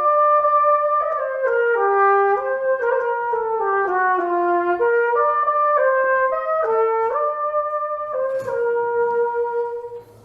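A 1913 St Petersburg-made trumpet played solo: a melodic phrase of a dozen or so connected notes moving up and down, ending on one long held note that stops just before the end.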